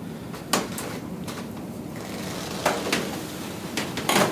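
A few short clicks and knocks from a patient being handled on a chiropractic treatment table, with a louder cluster near the end.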